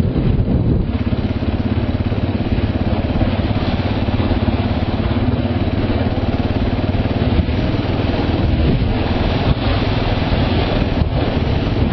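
KTM motorcycle engine running steadily under way at a constant pace.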